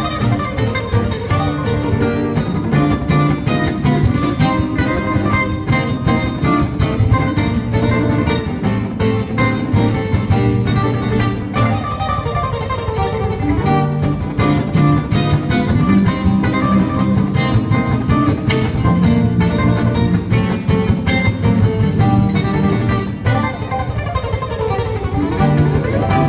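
A trio of guitars playing an instrumental together: two steel-string acoustic guitars and an archtop guitar, with fast picked notes throughout.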